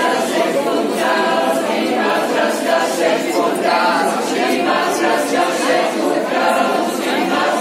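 A group of voices singing unaccompanied: an Occitan song for the dance, sung steadily without instruments.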